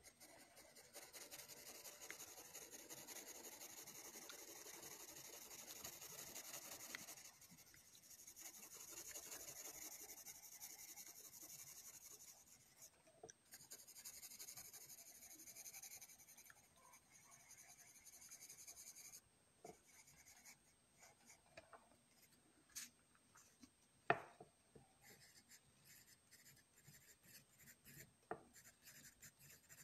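A graphite pencil shading on paper: faint, steady scratching in three long spells of back-and-forth strokes. After these come only sparse light scratches and taps, with one sharp click about two-thirds through.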